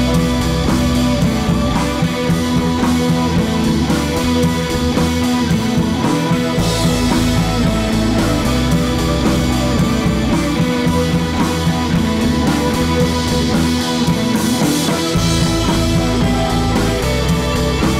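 Background rock music with electric guitar and a drum kit, playing steadily with a regular beat.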